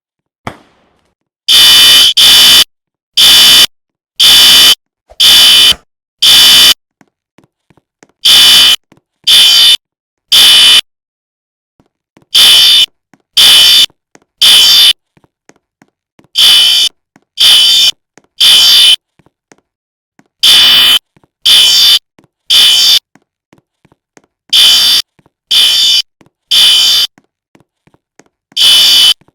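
Fire alarm sounding loudly with harsh, high beeps. After a few uneven beeps at the start, it settles into the temporal-three pattern: three short beeps, a pause, repeating. That pattern is the standard evacuation signal.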